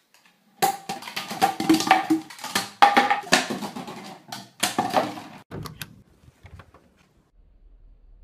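Empty plastic soda bottles knocked over by a puppy, clattering and rolling on a wooden floor: a rapid run of hollow knocks for about five seconds, then a few fainter knocks.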